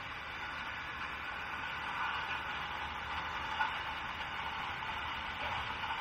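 Steady outdoor ambient hiss with no distinct event.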